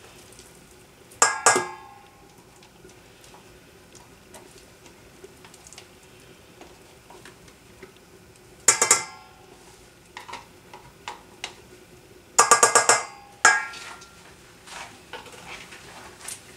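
A spoon clinking against a stainless-steel mixing bowl while cream cheese is scraped from a tub into it: three short bursts of quick, ringing metal strikes, the last a rapid run of taps lasting about a second, with small clicks between them. A faint steady hum runs underneath.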